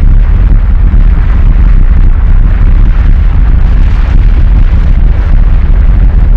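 Strombolian eruption at Stromboli's summit vent: a loud, steady, low roar of gas jetting out and throwing up lava fragments, with no separate bangs.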